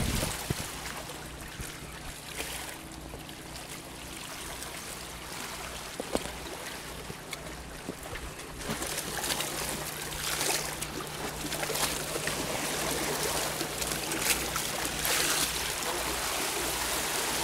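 Sea water sloshing and splashing against the rocks of a breakwater, getting louder about halfway through.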